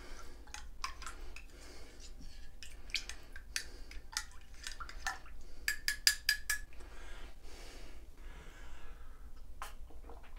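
A utensil stirring instant drink mix in a ceramic mug, tapping and clinking against the inside of the mug in a string of quick light clicks, with a busier run of ringing clinks about six seconds in.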